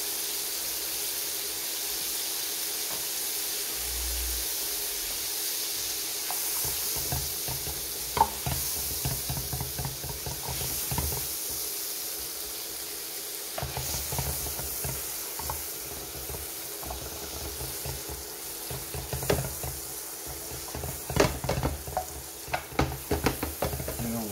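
Butter sizzling in a hot nonstick frying pan as baguette slices fry in it, with scattered knocks and scrapes against the pan that come more often near the end.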